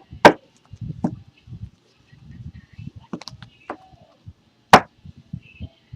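Sharp clicks and knocks of handling, two loud ones just after the start and about three-quarters of the way through, with softer taps and low rustling in between.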